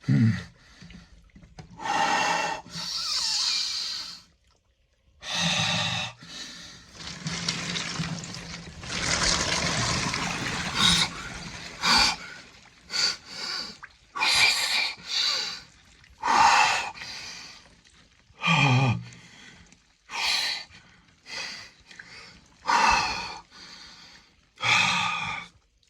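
A man breathing hard and forcefully while sitting in ice-cold water: deep, noisy breaths and gasps come every second or two, with water sloshing in between.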